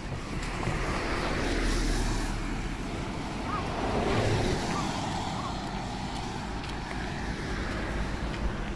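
Road traffic passing close by: a rush of tyre and engine noise that swells about two seconds in and again about four seconds in.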